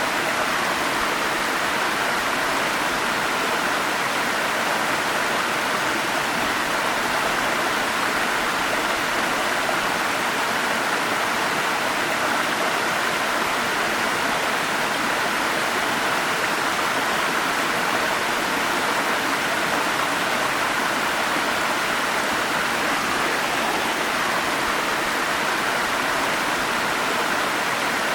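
Forest stream's water flowing steadily, an even rushing hiss with no breaks or changes.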